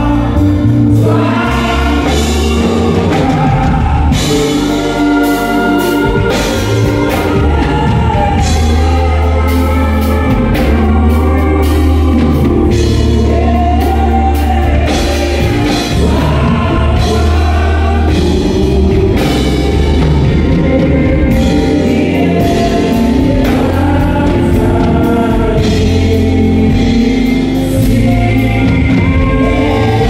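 A live band and a group of singers performing a song: several voices singing together over bass guitar and keyboard, with a steady beat and cymbal strokes.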